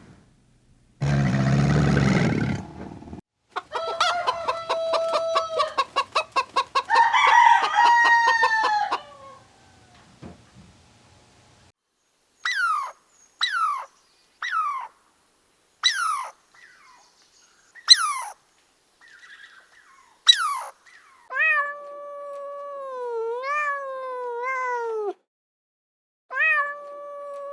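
A string of different animal calls, one after another. A low, rough sound until about three seconds in is followed by a rapidly pulsed pitched call, then about seven short, sharp calls that drop in pitch, and then long calls whose pitch wavers and dips.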